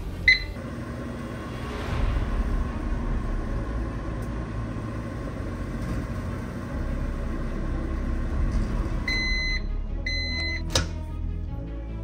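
Whirlpool over-the-range microwave oven: a keypad beep, then the oven running with a steady low hum. Near the end come two long beeps and a sharp click as the door is unlatched.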